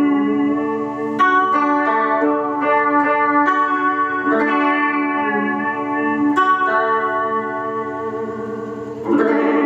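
Clean electric guitar playing ringing, sustained chords through the Joyo Vision Dual-Modulation pedal's chorus mode, which gives the chords a shimmering, doubled quality. Fresh chords are struck about every two to three seconds.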